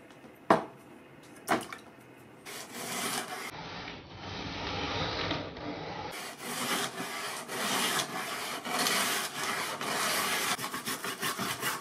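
Stiff plastic brush scrubbing loosened rust off an old Japanese nakiri blade in a tub of water after electrolysis, in repeated rubbing strokes. Two sharp knocks come in the first couple of seconds, before the scrubbing starts.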